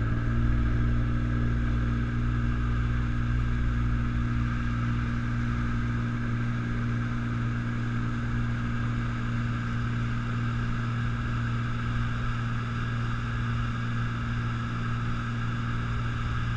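Motorboat engine running steadily under way, with the rush of water and wake around the hull. Its note picks up slightly at the very start, then holds even.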